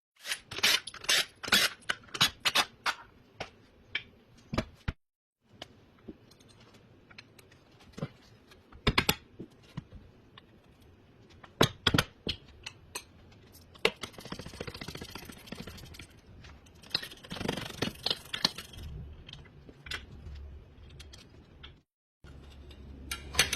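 Hand tools and metal parts clicking, clanking and scraping while a rear wheel and brake caliper are taken off a car, with two brief silent breaks. The clicks come thick and fast at first, then more scattered, with stretches of scraping later.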